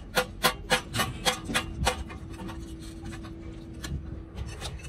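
Quick run of sharp metallic knocks, about four a second for two seconds, from a steel bar worked up and down against concrete, with a few weaker knocks near the end. A faint steady hum runs beneath in the middle.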